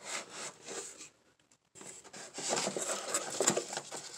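Cardboard box and blister-carded diecast cars being handled and pulled out: rustling and scraping of card and plastic, a short burst, a brief pause, then a longer spell of crinkling with small clicks.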